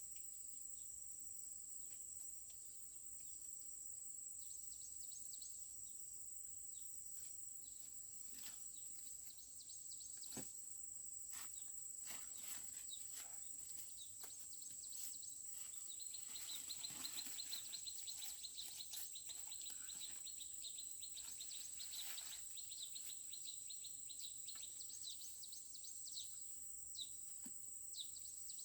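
A steady high-pitched insect drone, joined by a second, lower insect trill for about ten seconds in the middle, over scattered crackles and snaps of dry corn plants being handled during the harvest.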